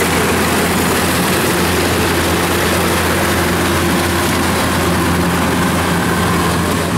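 Kubota rice combine harvester running steadily as it cuts and threshes rice: a loud, even engine hum with a constant wash of machine noise over it.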